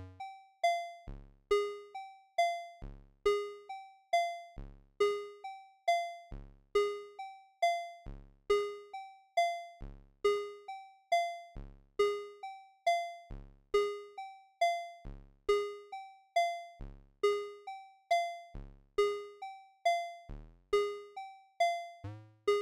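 VCV Rack software modular synth, with an 8-step sequencer driving an oscillator through a filter and ADSR envelope, playing a repeating loop of short synth notes, about one every three-quarters of a second. Each note has a sharp attack and a quick decay. Some steps change pitch as the sequencer's CV knobs are turned.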